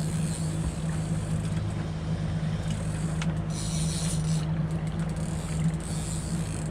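Motorboat engine running steadily under way, a constant low hum with an even hiss over it.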